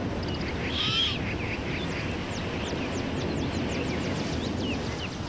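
Great horned owl chick giving a short, harsh rasping call in the nest about a second in, followed by a quick run of thin, high chirps from a small bird over steady outdoor background noise.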